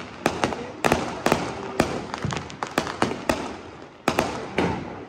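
Firecrackers bursting: about a dozen sharp bangs at uneven intervals, some louder than others, with a continuous haze of crackling between them.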